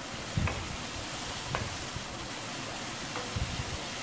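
Onion, capsicum and tomato masala sizzling gently in a non-stick frying pan as a wooden spatula stirs it, with a few soft knocks of the spatula against the pan about a second apart.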